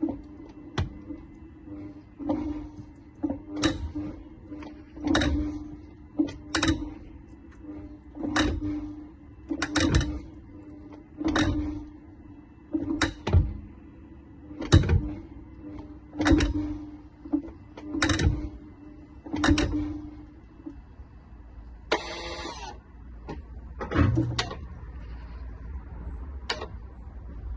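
Rear-wheel outer CV joint of a 2023 Volkswagen ID.3 clicking sharply about every one and a half seconds, a dozen or so times, as drive torque is reversed between Drive and Reverse against the held brake. A steady low hum runs under the clicks, and there is a brief buzz near the end. The clicking is the sign of free play in the outer CV joint, the likely cause according to the owner.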